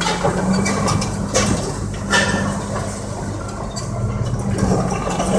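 Crawler dozer's diesel engine running steadily under load, with scattered metallic clanks and knocks as the steel tracks and the machine move.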